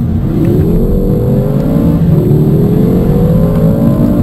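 Car engine accelerating hard at full throttle, its pitch climbing steadily and dropping at an upshift about two seconds in, then climbing again.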